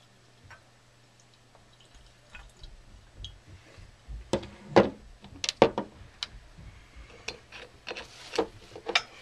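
Glass bottles being handled and set down on a tabletop: a quick run of sharp, loud knocks and clunks about halfway through, then lighter knocks and clatter.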